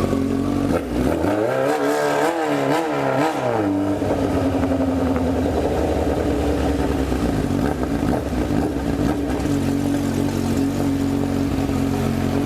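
Honda CB1000R inline-four motorcycle engine running. About a second in, the throttle is blipped several times so the revs rise and fall, then the engine settles back to a steady note.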